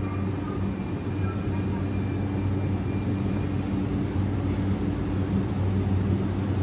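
JR East E131 series electric train humming steadily with a low electrical drone as it sets off from the platform.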